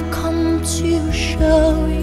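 Background music with long held notes over a steady low bass.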